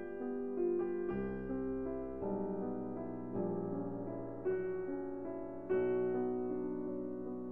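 Background piano music: a slow melody over sustained chords, with a new chord struck about once a second.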